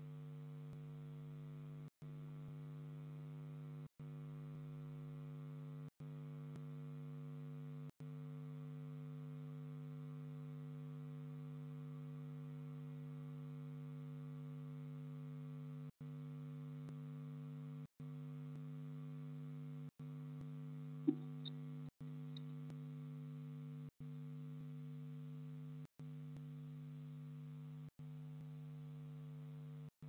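Steady electrical hum in a nest-box camera's audio, broken by very short dropouts about every two seconds. A single sharp click comes about twenty-one seconds in, with two faint ticks just after it.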